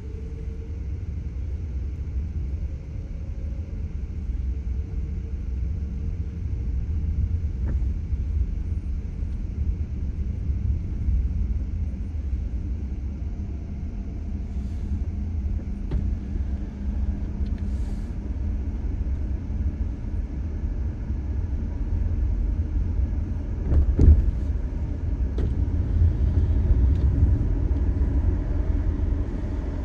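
Car cabin noise at highway speed: a steady low rumble of tyres and engine, with one short thump about four-fifths of the way through.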